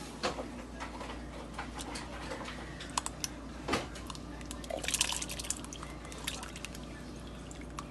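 Kitchen work sounds: scattered clinks and knocks of pots and utensils, with a brief spell of splashing water about five seconds in.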